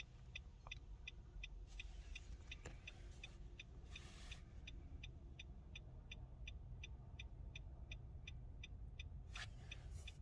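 2016 Nissan Rogue's hazard-flasher ticking, about three even clicks a second, over a faint low rumble. The hazards are on as one step of the immobilizer key-programming routine.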